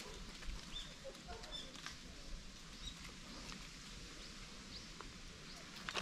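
Faint footsteps on a forest path, irregular soft clicks, with a few short high bird chirps.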